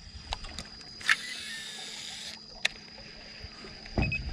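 A baitcasting reel's spool whirring for about a second as line pays out on a cast, ending in a sharp click. A steady high whine runs underneath, and there are low handling thumps near the end.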